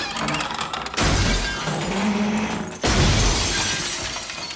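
Glass-fronted wooden trophy cases toppling and crashing to the floor, their glass shattering: two big crashes, about a second in and again just before three seconds in, each trailing off in breaking glass and falling debris.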